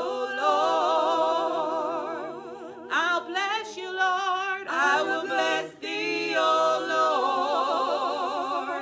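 Two women singing a gospel worship chorus a cappella, holding long notes with vibrato, with short breaths between phrases about three and six seconds in.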